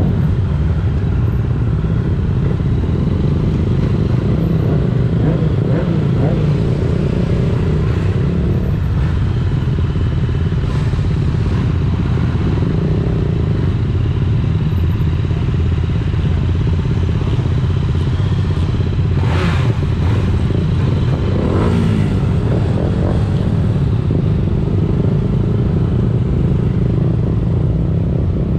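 Motor vehicle running steadily on the road, a loud continuous low rumble of engine and road noise, with two brief noisy surges about two-thirds of the way through.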